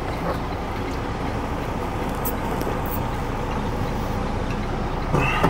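Heavy truck's diesel engine running steadily, heard from inside the cab, with a couple of faint clicks about two and a half seconds in.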